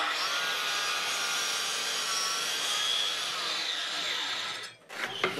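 Festool Kapex KS 60 sliding miter saw running and cutting down through a 72 mm thick ash blank, deeper than its rated 60 mm cut. The steady saw noise stops suddenly near the end.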